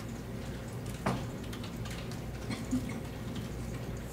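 Scattered light clicks of a computer keyboard and mouse as spreadsheet data is keyed in, over the steady low hum of a computer lab.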